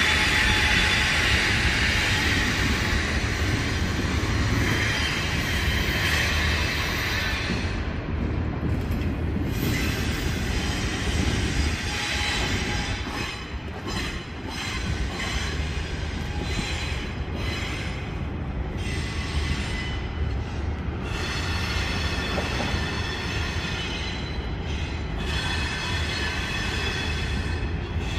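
CSX freight train's cars rolling slowly through a curve, the steel wheel flanges rubbing against the rail and squealing over a steady low rumble. The high squeal is loudest at the start and comes and goes.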